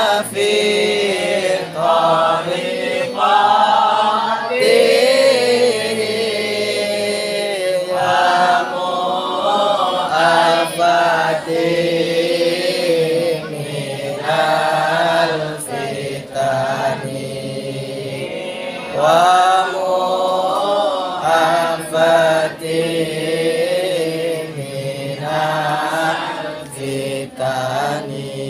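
Islamic devotional chant (sholawat) sung together by a group of men and boys, in long phrases whose pitch rises and falls, with short breaks between phrases.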